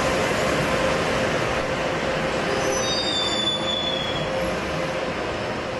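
Subway train moving along the platform with a steady rumble that slowly gets quieter. About two and a half seconds in, the wheels give a brief high squeal lasting about a second and a half.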